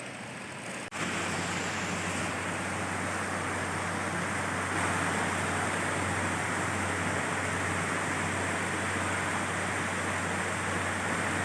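Heavy rain falling, a steady rushing noise with a low hum beneath it; it cuts briefly about a second in and comes back louder.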